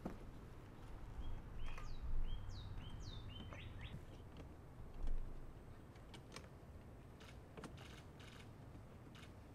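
A bird singing a short run of quick falling whistled notes, starting about a second and a half in, followed by scattered light clicks over a low steady background rumble.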